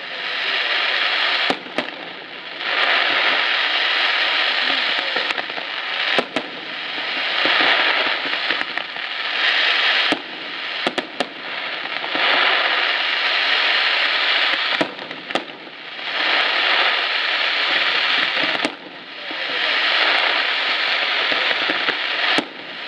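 Fireworks display: long stretches of dense hissing and crackling from rising comets and fountains, broken by sharp bangs of bursting shells every few seconds.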